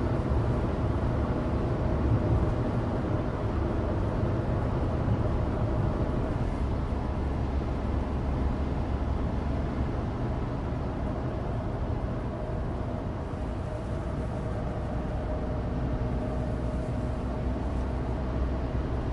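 Cabin noise of a Suzuki Alto Turbo RS kei car under way: its 660 cc turbocharged three-cylinder engine running at a steady speed, under a steady low rumble of road and studless-tyre noise.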